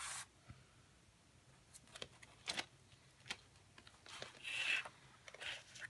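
Faint taps and clicks of a picture frame and its glass being handled on a table, then a brief soft sliding rub as the frame's backing board is moved into place.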